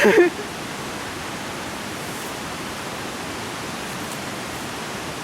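A steady, even rushing noise with no rhythm or pitch, after a brief vocal sound right at the start.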